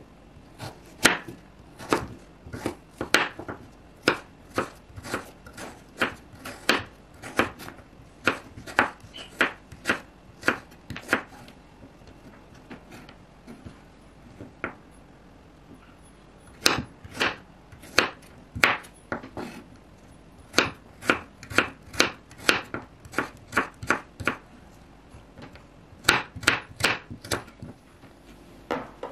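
Kitchen knife chopping raw pumpkin on a wooden cutting board: a run of sharp knocks, about two a second, with a pause of a few seconds in the middle.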